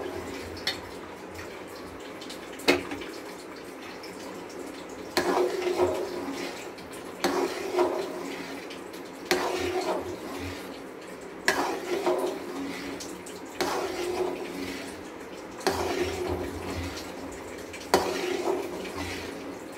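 Steel ladle stirring a runny, ghee-rich gram-flour and sugar-syrup batter (Mysore pak) in a metal pan: a wet sloshing and scraping that comes in strokes about every two seconds. Two sharp clicks of metal on metal in the first three seconds.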